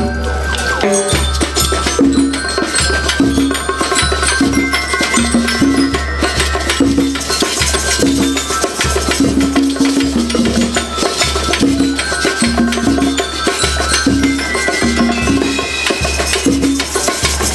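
School rhythm band playing a march: snare and bass drums keep a steady beat under a melody of held notes, with bell lyres ringing above.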